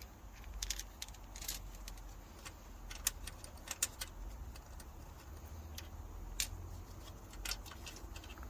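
Light metallic clicks and clinks of rocker arms being picked out of a BMW M57 diesel cylinder head and set down, about a dozen irregular ticks over a faint low hum.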